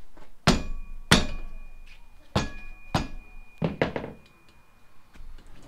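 Six sharp metallic knocks in three pairs, the first ones leaving a thin ringing tone. They come from the motorcycle's rear wheel being shoved and jolted into line on its stand while the axle is being aligned.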